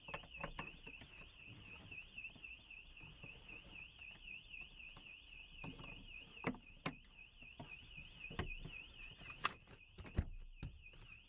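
A faint car alarm warbling, its high electronic tone rising and falling about four times a second and dropping out briefly near the end, with a few scattered clicks and knocks.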